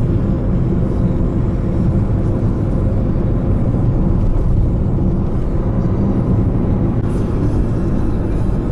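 Steady low road and engine noise heard inside the cabin of a car driving along a highway.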